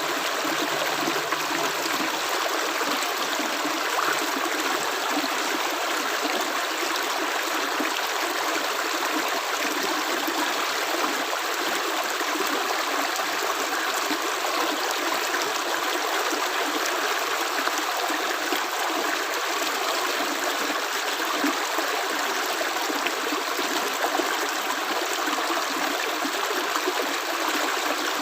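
Running water, like a stream, giving a steady, even rushing with no pauses.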